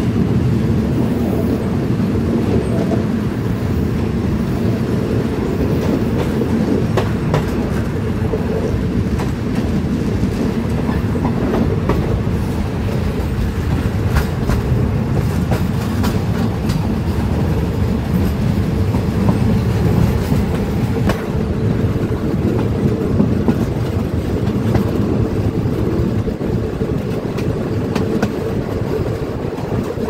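Passenger coaches of a Thai ordinary (third-class) train rolling along the track: a steady low rumble of wheels on rail, with scattered clicks as the wheels cross rail joints.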